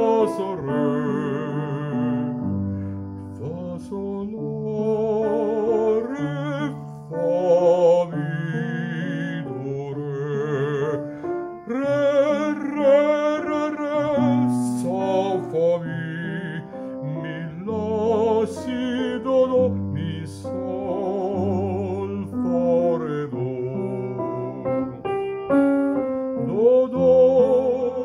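A man sings a solfège sight-singing exercise in F major, naming the notes as he goes, his voice wavering with vibrato, over a piano accompaniment.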